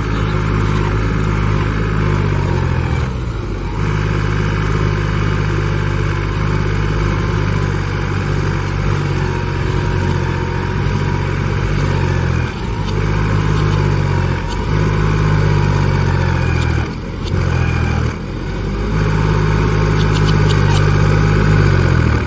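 Powertrac tractor's diesel engine revving hard while stuck in mud, the revs dropping briefly a few times and picking back up.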